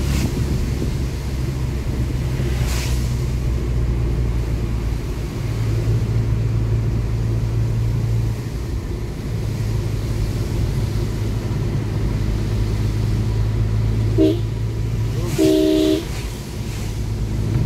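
Car driving on a wet road, heard from inside the cabin: a steady low rumble of engine and tyres. About fourteen seconds in, a car horn gives a short toot, then a longer one of about half a second.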